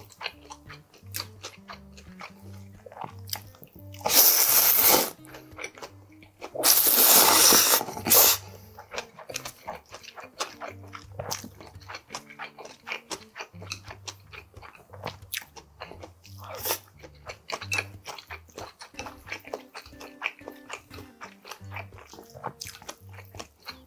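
Cold ramen noodles (hiyashi chuka) being slurped twice: loud and long, about four and seven seconds in. Between and after the slurps comes close-up chewing with many small crunching and wet clicks, over soft background music with a repeating bass line.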